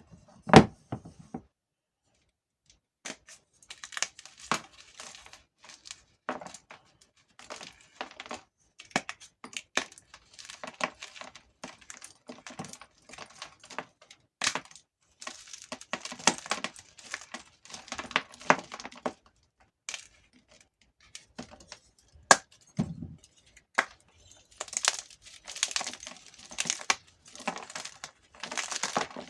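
Gym chalk being crushed and crumbled between the fingers: dry, crispy crunching and crackling in irregular clusters with short pauses, and a few sharp cracks. A dull thump just after the start is the loudest sound.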